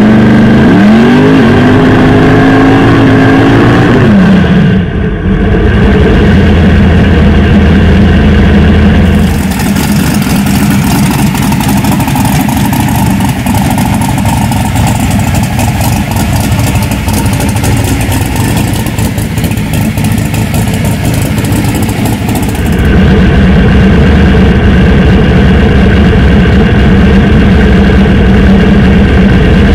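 Drag-racing Chevy S10 pickup's engine revving up, dropping back briefly, then a long stretch of loud hissing tyre spin and engine noise as the truck does a burnout. About two-thirds through, the hiss stops and the engine settles to a steady idle.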